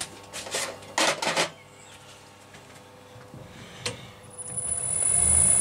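A few metallic clicks and knocks from handling the lathe's toolpost and controls, then the small metal lathe's motor starts about four seconds in and runs up to a steady speed with a high whine, spinning the chuck for screw cutting a 16 TPI thread.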